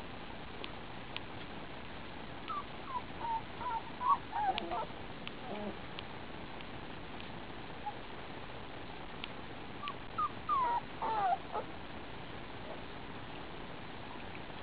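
Four-week-old German Shepherd puppies whimpering in short, high, sliding squeaks, in two bursts, one a few seconds in and another about two-thirds of the way through.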